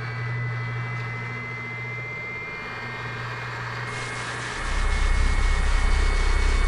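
Sci-fi sound effect of a UFO overhead: a steady low hum with thin high whining tones, joined about four and a half seconds in by a much louder deep rumble.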